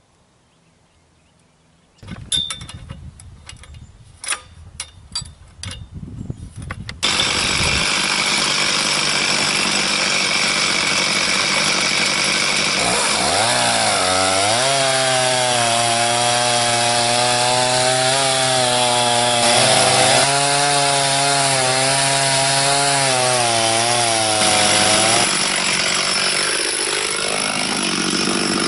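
A chainsaw on an Alaskan chainsaw mill ripping a slab lengthwise through a Norway pine log. It follows a few seconds of knocks and rattles. The saw's engine runs steadily under load and its pitch wavers, then climbs near the end. It cuts slowly with a regular chain instead of a ripping chain.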